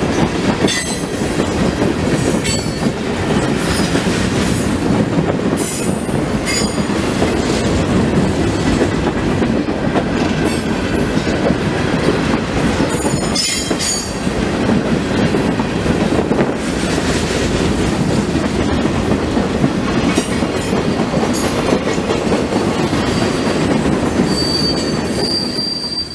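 Freight train boxcars rolling past close by: a steady rumble of steel wheels on the rails with rail-joint clicks and scattered short, high wheel squeals. A held high-pitched wheel squeal comes in near the end.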